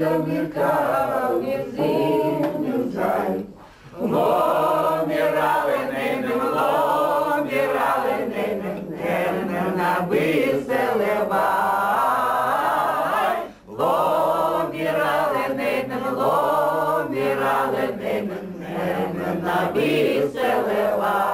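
A group of elderly men and women singing a song together around a table, with two short breaks between lines, about four seconds and thirteen seconds in.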